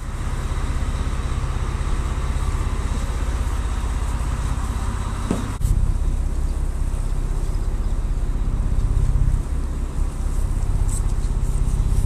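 Boat's inboard engine running at idle, a steady low drone with an even pulsing throb.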